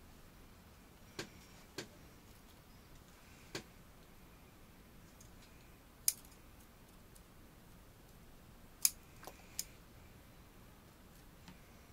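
Bonsai pruning shears snipping leaves and shoots off a Korean hornbeam bonsai: about seven short, sharp snips at irregular intervals, the loudest about six and nine seconds in.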